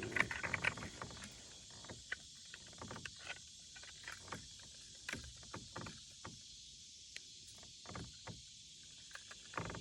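Scattered light knocks and clicks at irregular intervals in a small boat, over a steady faint hiss.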